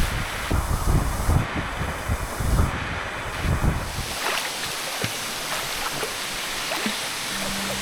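Wind buffeting the microphone over a steady rushing hiss of water at a waterfall plunge pool; the buffeting drops away about four seconds in, leaving the even water noise.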